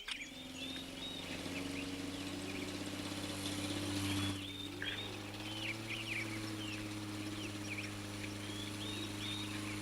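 Birds chirping and twittering in short curved calls over a steady low hum.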